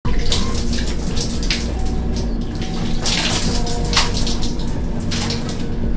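Water splashing and pouring in irregular bursts, the largest about three seconds in, as from someone washing or bathing, over a steady low rumble.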